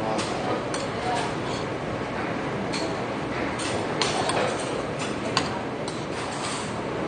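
Metal spoon clinking and scraping against a heavy black pot of soup while eating: a dozen or so irregular sharp clinks, the loudest about four and five and a half seconds in, over a steady background hum.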